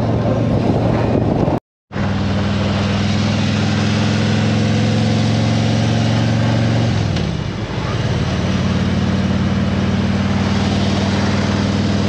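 Motorcycle engine running steadily at road speed, heard from on the bike with wind rush over the microphone. The sound cuts out for a moment about two seconds in, and the engine note dips briefly about seven seconds in before steadying again.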